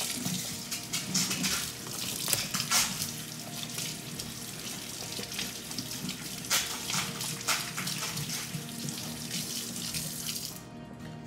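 Kitchen faucet running into the sink while hands are washed under it, the water splashing unevenly. The tap shuts off near the end.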